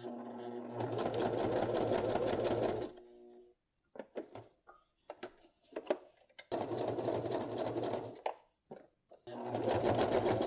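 Brother electric sewing machine stitching a fabric heart onto cardstock in three short runs, each stopping and starting, with scattered light clicks in the pauses between runs.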